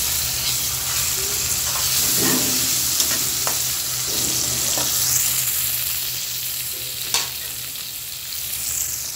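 Sliced onions and ginger-garlic paste sizzling in hot oil in a pan, stirred with a spatula that scrapes and taps against the pan a few times.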